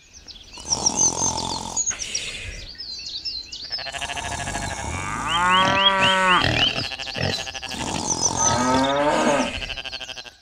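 A cow mooing, with one long moo about halfway through and another shorter call near the end, over continual high-pitched chirping.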